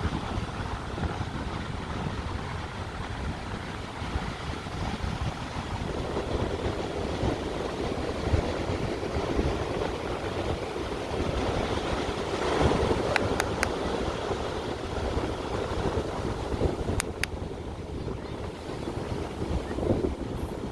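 Wind rumbling on the microphone over the steady wash of sea waves on the shore.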